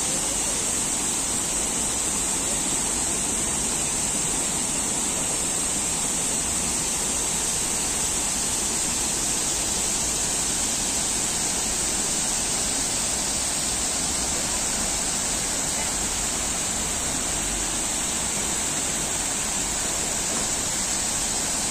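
Man-made waterfall: water pouring down several tiers of artificial rock and splashing into a pond, a steady rushing noise.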